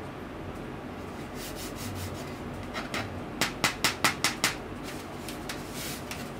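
Hands handling a Zebronics NC1200 laptop cooling pad: fingers rubbing over its perforated mesh top and plastic frame, with a quick run of about six sharp clicks and taps near the middle.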